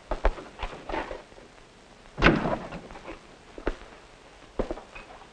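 A door shut with a thud about two seconds in, with scattered clicks and knocks before and after it.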